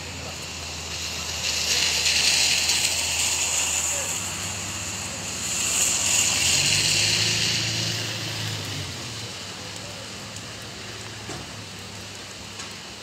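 Heavy rain with two vehicles passing on a wet street, their tyres hissing through the water, one after the other; a low engine hum comes with the second.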